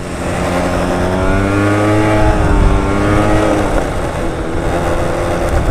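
Motorcycle engine running as the bike rides along; its pitch climbs through the first couple of seconds as it accelerates, then eases off and holds steady.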